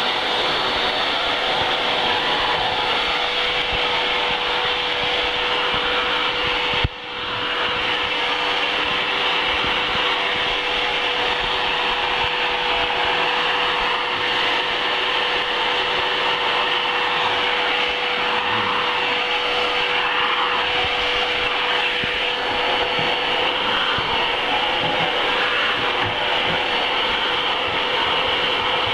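Canister vacuum cleaner running steadily, with a constant motor hum under the rush of air, while its flat floor nozzle is pushed back and forth over carpet and tile floor. A brief click and drop in sound comes about seven seconds in.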